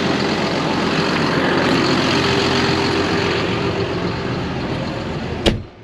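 Tractor engine running steadily, with a held tone over a dense rumble. A single sharp click near the end, after which the sound drops away abruptly.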